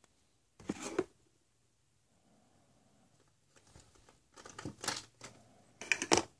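Plastic surprise eggs and small plastic toys clattering and rustling as hands rummage through a box of them, in three short bursts: about half a second in, around the middle, and near the end.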